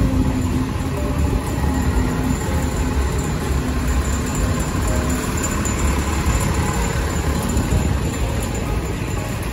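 Steady low rumble of busy city street noise, with no single sound standing out.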